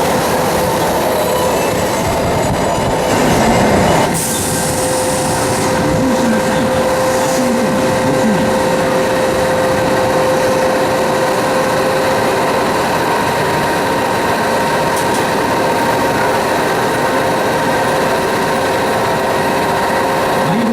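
Subway train running at the platform: a steady rumble of wheels on rail with a steady electric motor whine, and a brief louder hissing rush about three to four seconds in.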